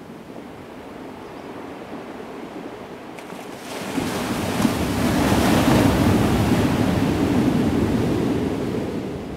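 Strong wind gusting across an open sandy beach and buffeting the microphone, blowing sand in streaks over the flats. A gust comes in suddenly about four seconds in, holds loud for several seconds, then eases near the end.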